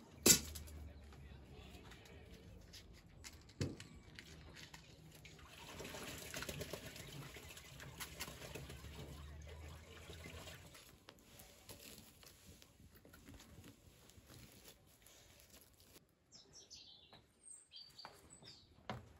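Dry kindling and sticks handled and arranged in a stone fire pit: a sharp knock just after the start, a smaller knock a few seconds later, and rustling with a low rumble for the first half. Birds chirp near the end.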